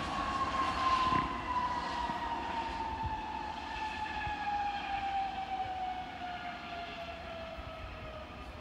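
Jet airliner's engines whining over a steady rumble, the whine sliding slowly and evenly down in pitch as the sound fades.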